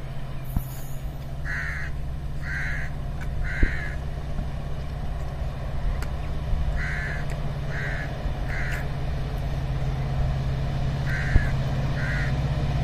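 A crow cawing in three groups of two or three caws, over a steady low rumble that slowly grows louder: a diesel locomotive approaching in the distance.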